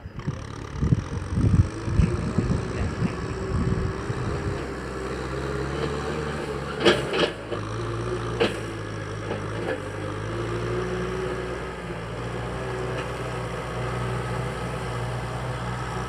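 Kubota M6040SU tractor's four-cylinder diesel engine droning steadily under load while it pulls a tiller through dry field soil. It is preceded by a few seconds of irregular low thumps, and two sharp clacks come near the middle.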